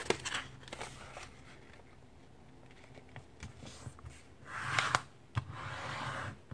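A sheet of paper being folded and creased by hand on a table: soft rustles, then two louder swishes of paper sliding in the second half, with a short sharp click between them.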